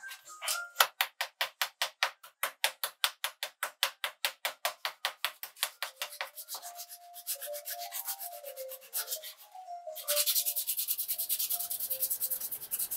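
A hand tool scraping and abrading a corroded copper pipe in rhythmic back-and-forth strokes, about five a second. About ten seconds in the strokes become faster and louder.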